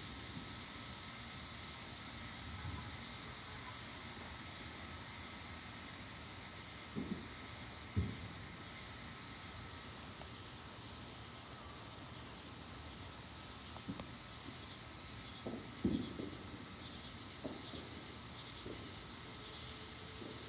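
A steady, high chorus of night insects trilling, with a few short low thumps scattered through the middle and later part.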